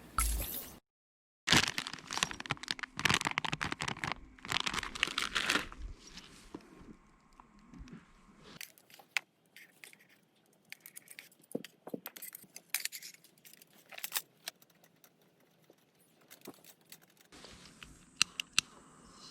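Rustling and crinkling of packaging or material being handled, with clicks and light taps; busiest in the first few seconds, then sparser.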